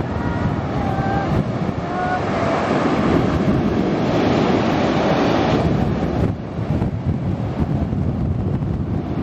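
Sea waves breaking and washing up the beach, with wind buffeting the microphone. The surf builds to its loudest over a few seconds, then eases about six seconds in.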